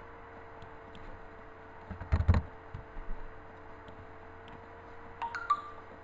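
A steady hum with faint ticks, a brief cluster of loud knocks about two seconds in, and two sharp clicks with a short ring near the end.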